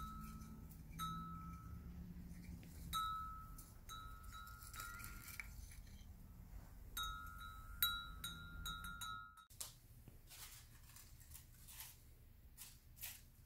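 A soft bell-like chime striking the same note again and again, sometimes about two strikes a second, then cutting off suddenly about nine seconds in. Faint clicks follow.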